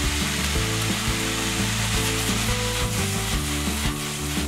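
Sliced vegetables sizzling in hot olive oil as they are stir-fried in a wok, a steady frying hiss, under background music with a slow line of low notes.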